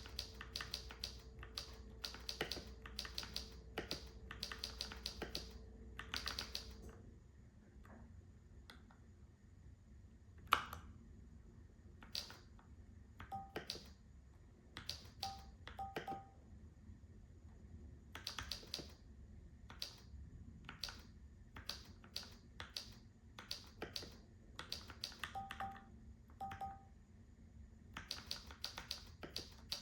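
Typing on a Keychron K4 v2 mechanical keyboard with brown switches. A quick run of keystrokes fills the first several seconds, then come slower, scattered key presses, with short electronic beeps several times among them.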